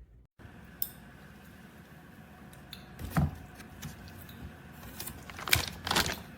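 A few sharp clicks and knocks over a faint steady hiss, with one louder knock about three seconds in and a quick cluster of clicks near the end.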